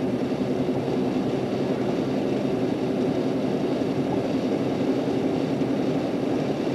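Steady road noise inside a moving car's cabin: a constant drone of tyres and engine, with a faint low hum running through it.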